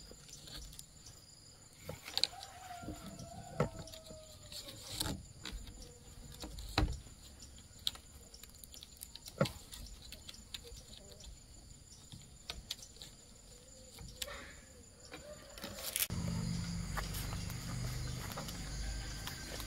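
Scattered sharp knocks, about five, over a steady high insect buzz. A louder low hum comes in near the end.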